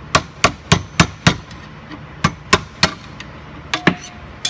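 Hammer blows on a long steel rod used as a drift, driving the cut-through shell of a worn bushing out of a Honda control arm held in a vise. Sharp metallic strikes come in a run of five at about three a second, then a pause, three more, and two more near the end.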